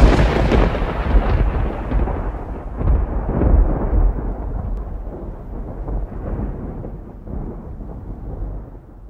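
Thunder sound effect: a sudden loud crack-like onset, then a deep rumble that swells a few times and slowly dies away.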